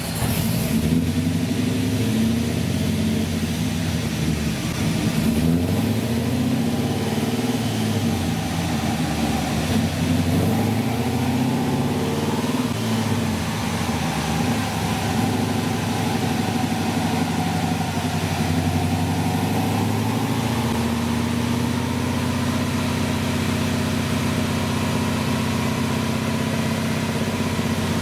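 1995 Camaro Z28's modified LT1 V8, with long-tube headers and a Borla 3-inch cat-back exhaust, running at low engine speed on the dyno: its pitch wavers up and down through the first dozen seconds, then holds steadier.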